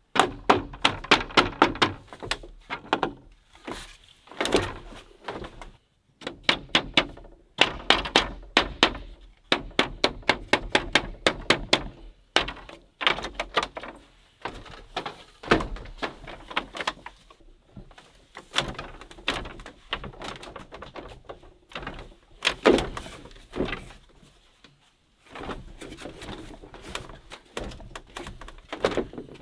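Runs of hollow wooden knocks, several a second with short pauses between runs: a short wooden log used as a mallet, pounding bamboo rods into place in a bamboo chair frame.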